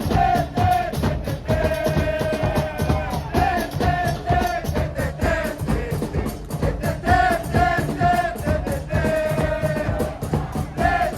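Football supporters' chant: a short melody sung over and over to a steady bass drum beat.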